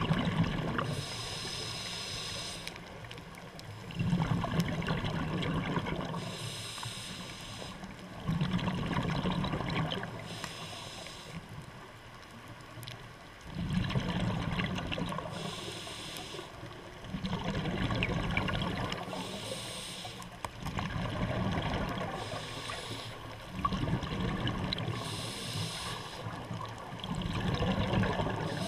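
Scuba regulator breathing underwater: bubbling exhalations alternating with the hiss of inhaled breaths, one breath about every four seconds.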